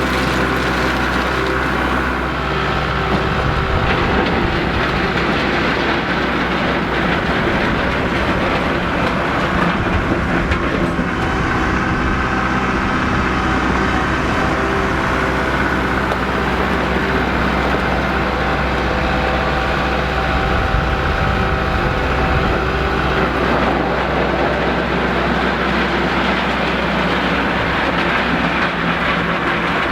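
An engine running steadily under a continuous mechanical rattle and hum, with no pauses.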